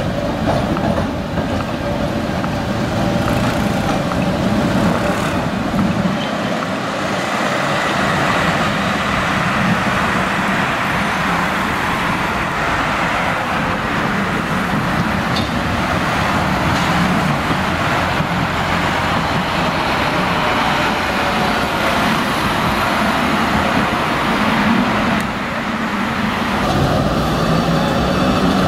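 Steady street traffic, with cars and trams passing.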